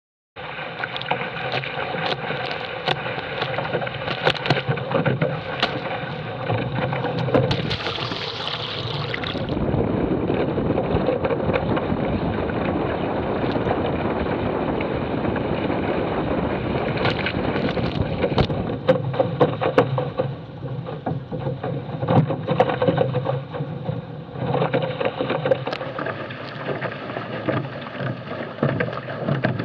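Water rushing and slapping along the hulls of a small sailing catamaran under way, with wind buffeting the microphone and many short knocks and slaps throughout.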